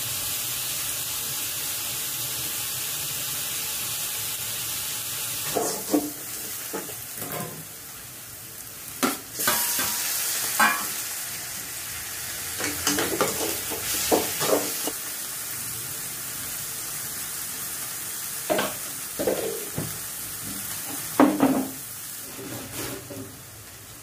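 Onion, tomato and green chilli sizzling in oil in a metal kadai, with a steady hiss at first. From about six seconds in, a steel spoon stirs and scrapes against the pan in irregular strokes over the fainter frying hiss.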